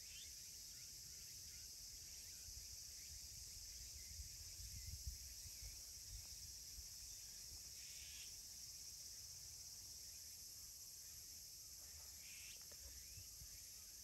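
Faint, steady high-pitched drone of an insect chorus, with a couple of brief faint calls about 8 and 12 seconds in and a little low rumble near the middle.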